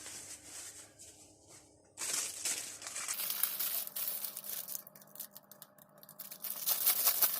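Packaging crinkling and rustling in irregular bursts as a newly delivered NVR switch is handled and unwrapped, louder from about two seconds in.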